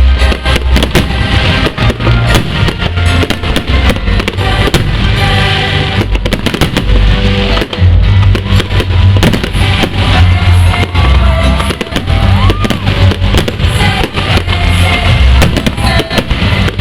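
Fireworks exploding in rapid, dense bangs and crackles over loud music with a heavy bass.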